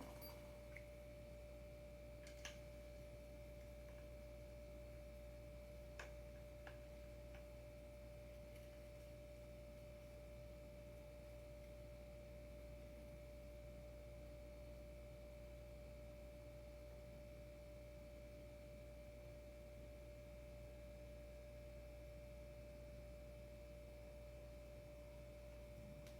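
Near silence: room tone with a faint steady whine, and a few faint clicks about two and a half and six seconds in.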